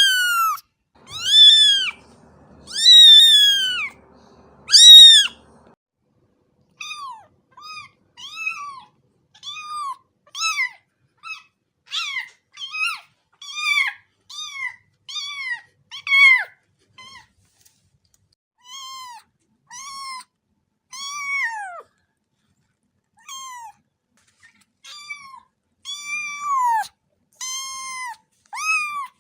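Kittens meowing over and over in short, high-pitched mews. Four longer, louder mews come in the first five seconds, then quicker, quieter ones about once a second.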